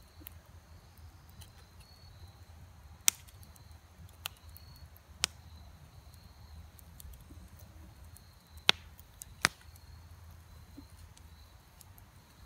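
LT Wright Bushcrafter HC knife's spear-point tip carving a hole in a piece of wet, sappy wood. It makes five sharp clicks and snaps at uneven intervals as the blade bites and cuts, with the loudest one a few seconds in and another near the end.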